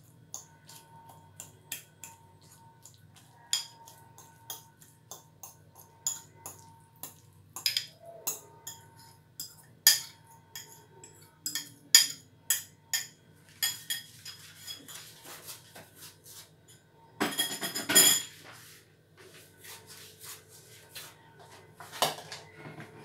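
Metal utensils clinking, tapping and scraping against dishes in an irregular series of sharp clicks and knocks. About seventeen seconds in there is a short, dense burst of scraping and rattling, the loudest part.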